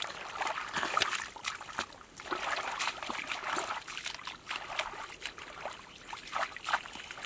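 Irregular splashing and sloshing of shallow muddy water as a barefoot man wades through a puddle and gropes in it with his hands.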